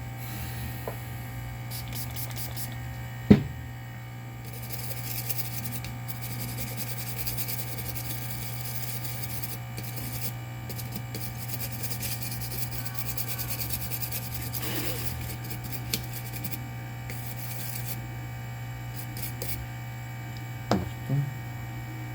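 Scratchy rubbing of a brush scrubbing a circuit board, over a steady low hum from the workbench equipment. There is a sharp knock about three seconds in and a couple of small knocks near the end.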